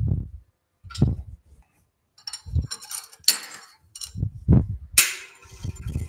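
A run of separate knocks and metallic clinks from woodturning lathe parts and tools being handled and set down, as the tailstock is moved out of the way and the headstock is readied for a chuck. The loudest, sharpest knock comes about five seconds in.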